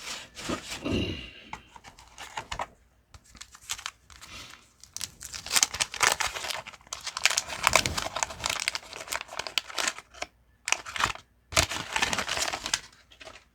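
Waxed-paper wrapper of a 1989 Fleer baseball card pack being torn open and crinkled by hand, in irregular rustling bursts that are busiest in the middle and again near the end.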